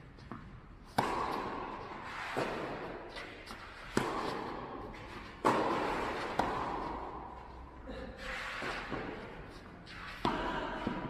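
Tennis ball rally: racket strikes and ball bounces on an indoor clay court, sharp pops every second or two, each ringing on in the large hall's echo.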